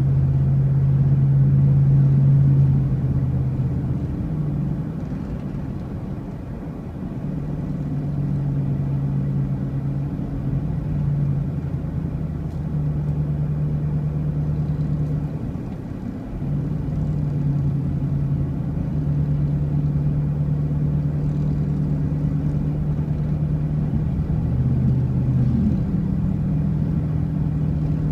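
A motor vehicle running on the road, with a steady engine hum that shifts up and down in pitch every few seconds as the speed changes, over a low road rumble.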